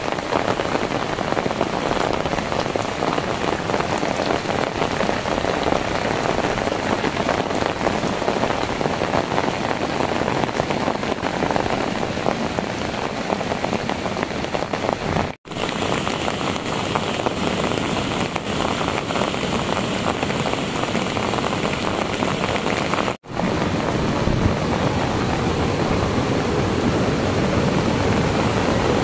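Heavy rain falling steadily, a dense, even hiss. It breaks off for a moment twice, about 15 and 23 seconds in.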